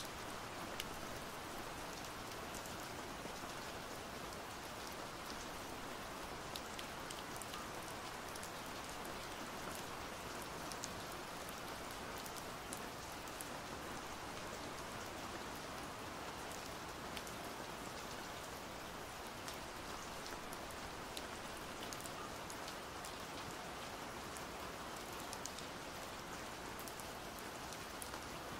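Steady pouring rain: an even hiss of rainfall with scattered sharper drop ticks.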